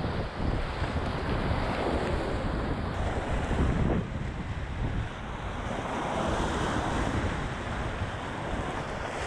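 Whitewater rapids of a river in high flood rushing and splashing around the bow of a kayak, with wind buffeting the camera microphone. A steady rushing that drops a little in loudness about four seconds in.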